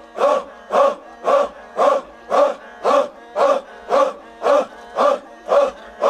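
A large crowd of men chanting in unison: a short, loud shout repeated steadily about twice a second.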